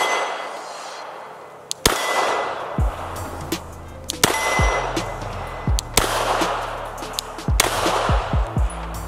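A 9mm Glock 19 pistol fired slowly four times, about two seconds apart, each shot followed by the ring of a struck steel target. A low electronic music beat comes in about three seconds in.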